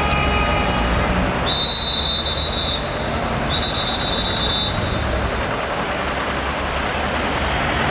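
Road traffic: a low engine rumble and tyre noise from passing cars. A high-pitched whistling squeal sounds twice, each lasting about a second, starting about one and a half and three and a half seconds in.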